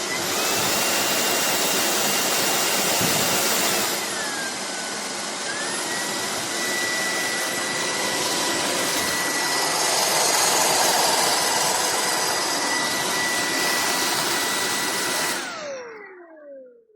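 Cordless vacuum cleaner motor running with a steady rush of air and a high whine. The whine drops in pitch about four seconds in and then holds steady. About fifteen seconds in the motor switches off and the whine falls away as it spins down.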